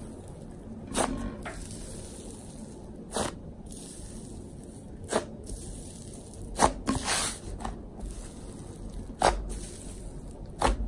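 Inflated slime squeezed and poked by fingers, its trapped air bubbles popping in sharp crackles and squishes: the slime's "sizzles". About ten pops at irregular intervals.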